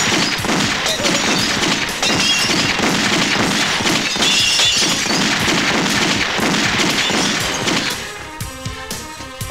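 Action-film soundtrack: music under a loud, dense run of crashes and shattering impacts, which eases off about eight seconds in to quieter music.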